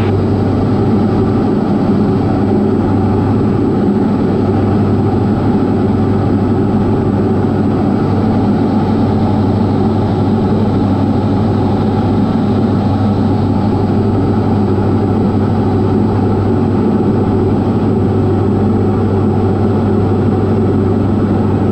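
Steady drone of a Diamond DA40's piston engine and propeller heard from inside the cockpit in flight.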